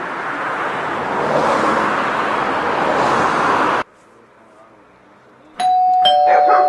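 Street traffic noise swelling as a car goes by, cutting off abruptly. After a quieter moment a click is followed by a doorbell ringing, two steady tones starting one after the other, as the bell button is pressed.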